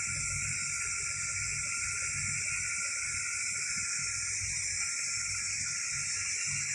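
Steady hiss with a low, unsteady hum from running laboratory equipment; no distinct clicks or changes.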